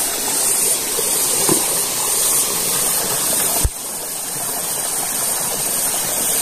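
Shallow stream water rushing and splashing over rocks in a small cascade, a steady hiss. A single sharp click a little past halfway, after which the rush is slightly quieter.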